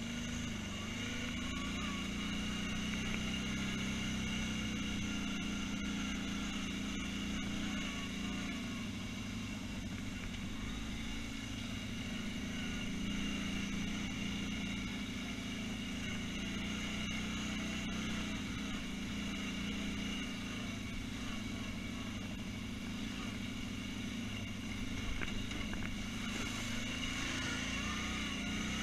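ATV engine running steadily as it is ridden, its pitch changing little.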